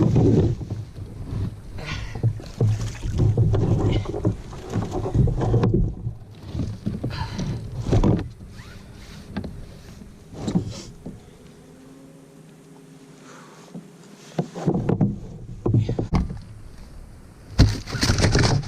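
Irregular knocks, bumps and rustling from handling gear and fish aboard a plastic fishing kayak, with water against the hull. There is a quieter lull about two-thirds of the way through.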